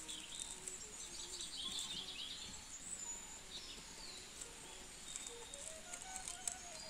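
Outdoor ambience of birds chirping, with a steady high insect hum and a faint melody of background music underneath.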